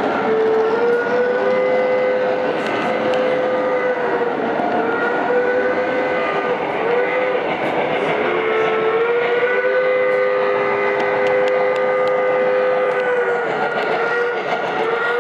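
Model locomotive's onboard sound system sounding a chime whistle in a series of long blasts, one about five seconds long, with brief breaks between them. Underneath is the running rumble of O gauge trains on three-rail track.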